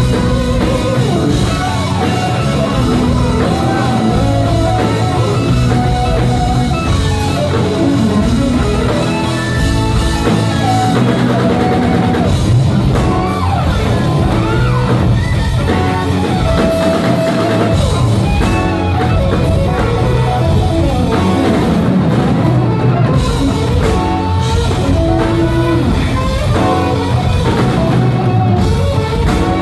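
Live rock band playing: electric guitars over a drum kit and keyboards, with a lead line that slides and bends in pitch, recorded from within the audience.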